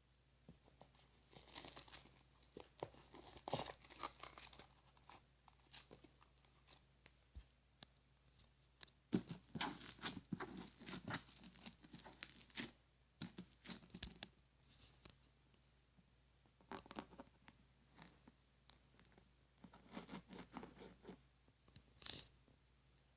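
Slime being squeezed and played with by hand: irregular clicks, crackles and small pops coming in clusters, with quiet gaps between them.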